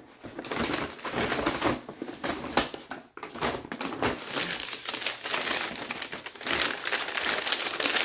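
White tissue paper rustling and crinkling as it is handled and pulled away from a candle, with a short pause about three seconds in.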